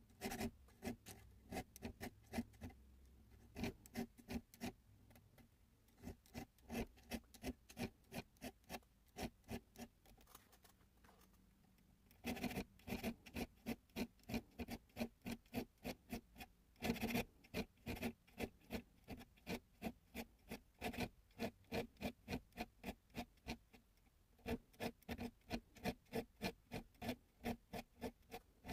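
Half-moon needle file cutting file work into the spines of slip joint pocket knife liners: short, even rasping strokes, about two to three a second, in runs broken by brief pauses.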